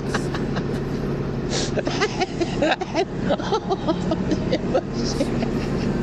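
Steady low engine hum of a motor vehicle, with people's voices talking over it and a few clicks.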